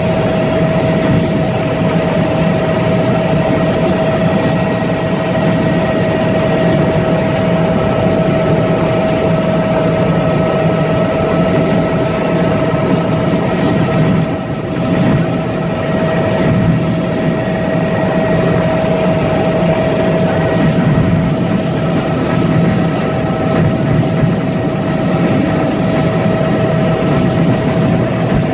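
Helicopter in flight heard from inside the cabin: a loud, steady drone of engine and rotors with a constant whine over it, briefly dipping a little about halfway through.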